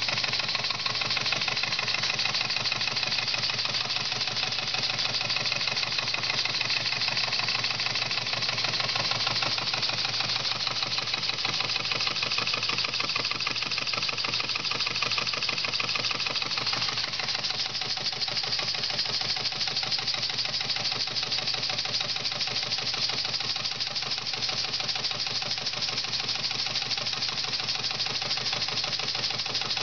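Live-steam model engine running fast and steadily, its exhaust beats coming in a rapid, even patter over a steady hiss of steam. The engine is working under load, belt-driving a small generator that lights bulbs.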